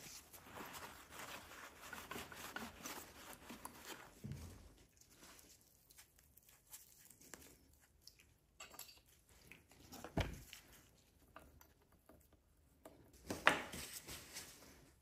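Faint hand-work noises from greasing a chainsaw's clutch sprocket bearing: rustling and scraping for the first few seconds, then scattered light clicks, a dull thump about ten seconds in and a sharper knock a few seconds later.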